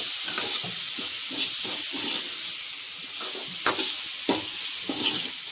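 Onions, tomato and spices frying in oil in a steel kadhai, sizzling steadily while a steel ladle stirs and scrapes against the pan, with a few sharp ladle clicks in the second half.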